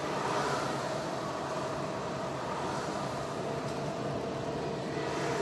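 Steady engine and tyre noise of a car driving in traffic, heard inside the cabin.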